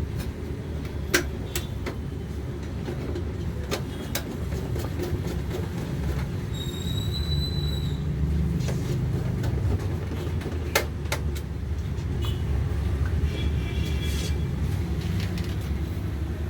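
Scattered sharp metal clicks and taps as a DVD writer is set into a steel PC cabinet's drive bay and screwed in, over a steady low background rumble. A brief high squeak comes about seven seconds in.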